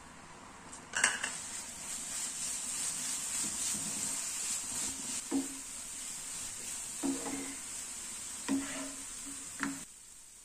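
Grated coconut being stirred into bubbling jaggery syrup in a non-stick frying pan with a wooden spatula: a steady sizzle, with a sharp knock about a second in and four short knocks of the spatula against the pan in the second half. The sizzle stops shortly before the end.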